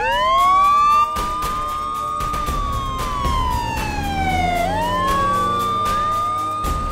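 Police car siren wailing. The tone rises quickly to a high pitch, holds, slides slowly down, then climbs again near the end.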